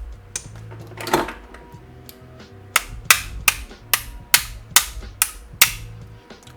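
A run of about eight sharp taps, roughly two a second, on the parts of a partly reassembled APS CAM870 gel blaster shotgun, preceded by a short rustle, with background music underneath.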